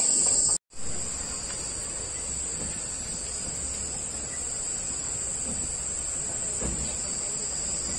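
Steady, high-pitched chorus of insects buzzing in trees, with a faint low rumble beneath. The sound cuts out completely for a moment about half a second in.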